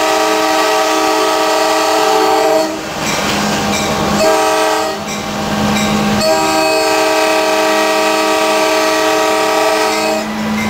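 Five-chime Nathan K5LA air horn on an EMD FL9 diesel locomotive blowing a chord: a blast that ends a few seconds in, a short blast, then a long blast that stops near the end. It is a grade-crossing horn pattern, heard from the cab over the locomotive's running and rail noise.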